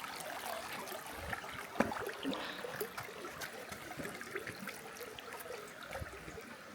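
Creek water trickling and flowing over rocks, steady throughout, with a few short knocks and scuffs, the loudest just under two seconds in.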